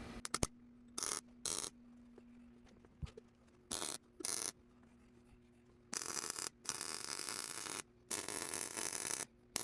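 Arc welding on steel: four short crackling tack welds, then three longer runs of steady crackling hiss about a second each as beads are laid, with a steady low hum from the welder underneath.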